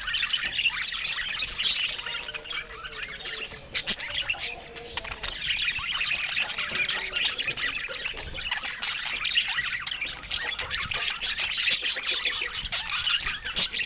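A group of caged pet birds chattering continuously, with sharp squawks and short chirps over one another.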